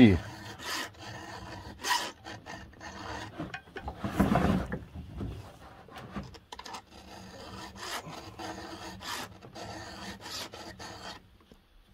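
Round chainsaw file scraping across the steel cutters of a saw chain in repeated hand strokes, each stroke a short rasp, with a louder rush of noise about four seconds in. The file cuts on the forward stroke and only lightly touches the depth gauge (raker) on the way back.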